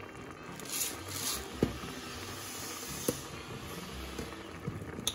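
Ground beef with onions and garlic sizzling in a stainless steel pot, a steady hiss with two sharp clicks about a second and a half and three seconds in.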